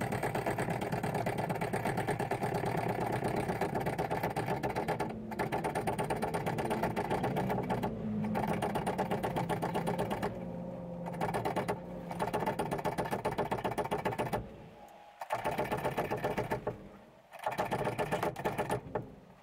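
Cordless impact driver hammering in runs of one to five seconds with short breaks, its pitch rising slightly partway through one run.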